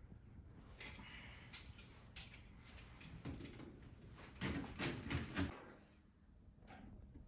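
Faint scattered clicks and knocks of hand work at a kitchen wall gas fitting, with a quick run of four louder knocks a little past halfway.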